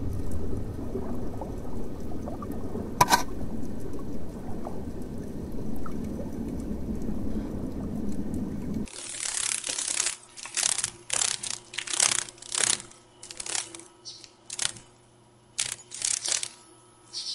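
Underwater ambience: a steady low rumble of moving water with a single click about three seconds in. After about nine seconds it cuts off and gives way to a run of short, irregular hissing bursts.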